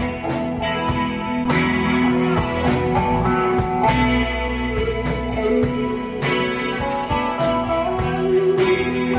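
A live rock band playing an instrumental passage without vocals: electric guitars over drums, with repeated cymbal hits.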